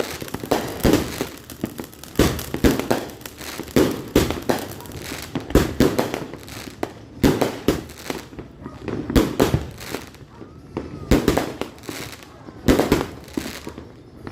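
Consumer fireworks going off in a long run of sharp bangs, one or two every second or so.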